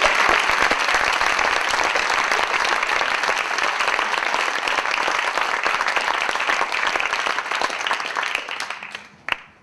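Audience applauding, a dense, steady clapping that dies away near the end with one last clap.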